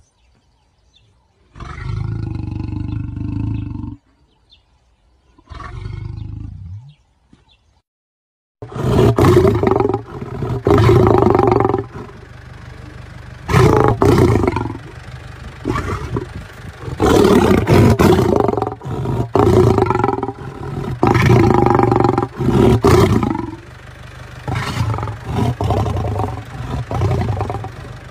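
Lion roars: two calls in the first seven seconds, then after a short silence a louder run of repeated roars, each a couple of seconds long, over steady background noise.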